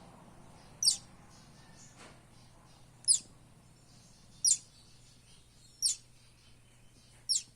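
Buff-banded rail chick peeping: five short, very high-pitched calls, each sliding sharply downward, repeated about every one and a half seconds.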